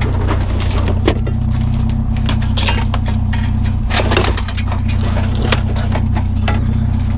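Vehicle engine idling steadily, with scattered clanks and rattles as items are handled.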